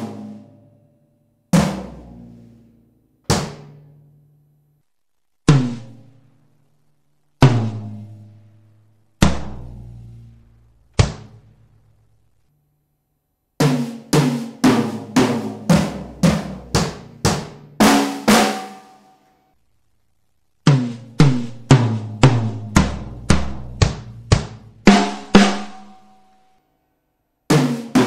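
Pearl acoustic drum kit played live: single strokes about every two seconds, each left to ring out, then two runs of fast strokes around the kit.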